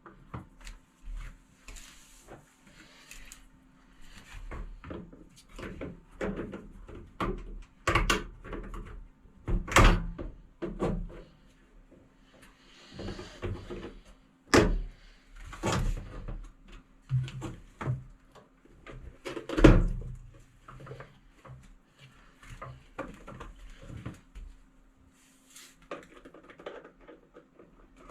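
Irregular clunks, knocks and scrapes of hard plastic and metal parts being handled on a Samsung WF8590NMS washing machine, like a door, drawer or panel being opened and shut. The loudest knocks fall about 8, 10, 14 and 20 seconds in, over a faint steady hum.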